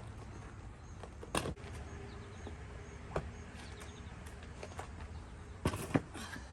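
A few knocks and clunks of plastic GreenStalk planter tiers being handled and set in place: one about a second in, another about three seconds in, and a loudest cluster near the end. Faint bird chirps sound over a steady low rumble.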